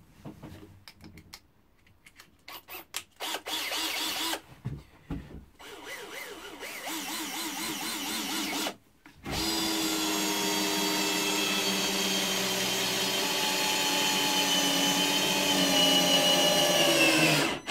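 Einhell TE-CD 18/40 cordless drill-driver in first (low) gear driving a long screw into wood. The motor runs in a few short starts and stops, then runs continuously for about eight seconds, its pitch sagging slightly as the screw goes in near the end before it stops.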